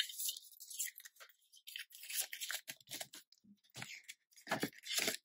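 Polymer £5 banknotes and paper cash envelopes rustling and crinkling as the notes are handled and slid into an envelope in a ring binder. The sound comes in short, scratchy strokes, a few louder ones near the end.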